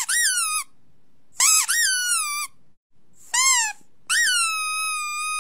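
A string of high-pitched, squeaky whining cries, each rising quickly and then sliding down in pitch, the last one drawn out and held nearly level. It is a sound played to a puppy to test how it reacts.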